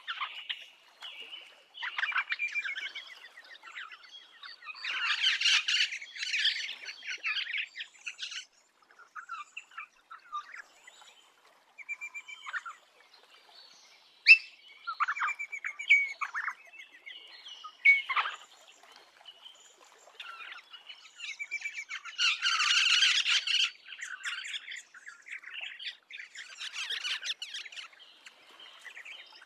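Rosellas calling: a run of short whistled notes and chirps, with two louder spells of dense chattering, one a few seconds in and one past the middle.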